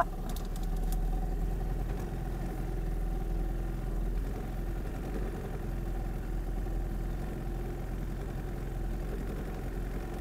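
Small boat's engine running steadily at low speed, an even drone with no change in pitch.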